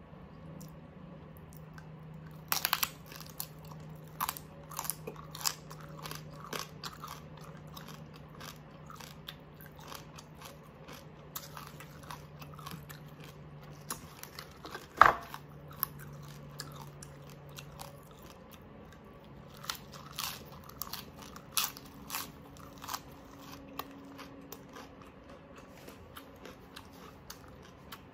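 Crispy oven-baked pork skin crunching and cracking as it is broken and chewed, with scattered sharp crackles coming in clusters; the loudest single snap is about halfway through.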